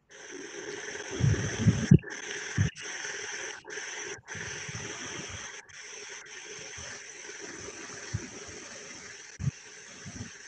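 Steady hiss of background noise from an open microphone on a video call, broken by several brief dropouts where the line goes dead. Low thumps and rumbles come through about a second or two in, with single ones later.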